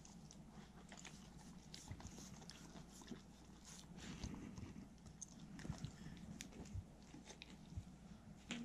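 Two Welsh corgis eating soft pieces of pork from a hand: faint, scattered chewing and lip-smacking clicks, with tongue licking.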